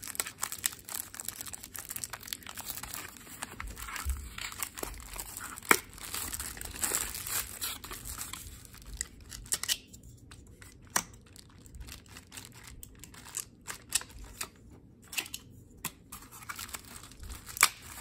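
Plastic packaging crinkling and tearing as a small packet of connectors is opened, with a sharp click about six seconds in. In the second half, sparser light clicks and taps of the plastic panel connectors being handled and set into a paper holder.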